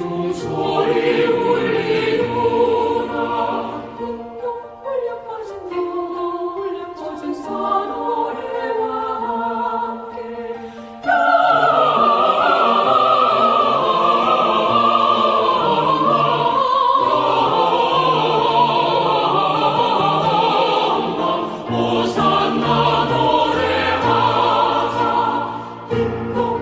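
Women's choir singing a two-part song, with a softer passage before the voices come in loud again about eleven seconds in.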